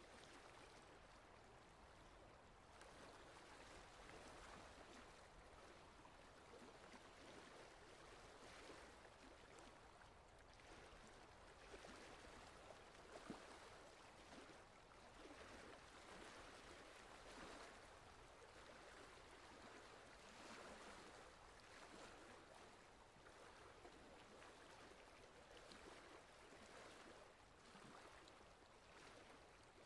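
Faint water swishing and lapping against a small boat as it moves along, swelling and easing every few seconds, with a couple of light taps about twelve seconds in.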